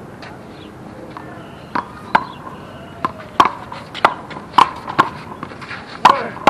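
One-wall handball rally: the ball is struck by bare hands and smacks off the concrete wall and court. Sharp cracks come about every half second, starting a little under two seconds in.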